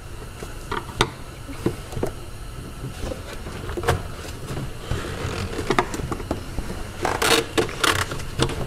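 Handling noise from work on an engine's intake: scattered clicks and taps of a screwdriver and hands against the plastic and rubber of the intake boot. A short run of scraping and rustling about seven seconds in.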